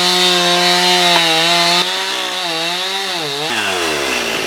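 Chainsaw engine sound running at high speed, steady at first, then wavering and winding down in pitch near the end, as when the throttle is let off.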